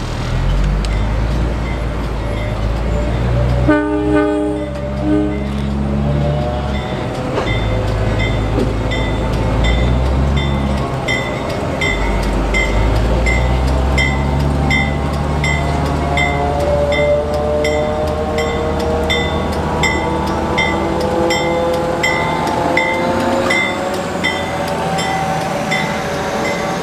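Slow-moving diesel-pushed work train with a low steady rumble, a short locomotive horn blast about four seconds in, then a bell ringing steadily at about two strikes a second. In the second half, wavering wheel squeal as the train curves into the yard.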